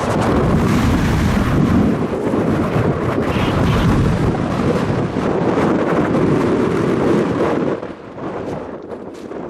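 Strong gusting wind buffeting the microphone: a loud, low rumble that dips for a moment near the end.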